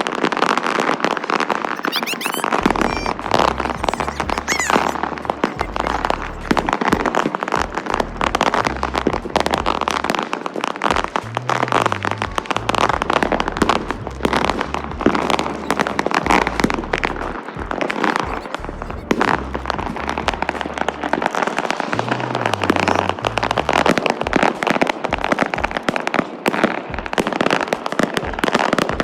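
Fireworks going off without let-up: dense crackling and popping, with high whistles about two and four seconds in. Music with a stepping bass line runs underneath from about two seconds in.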